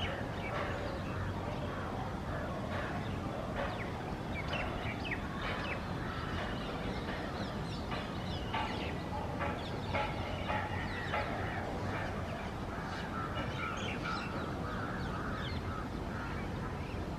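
A chorus of birds calling and chirping, many short overlapping notes from several birds, over a steady low background hum.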